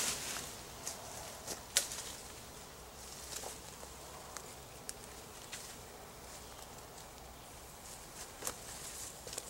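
Footsteps through forest undergrowth: scattered sharp snaps and crackles of twigs and dry leaves, the loudest about two seconds in, over a faint steady hiss.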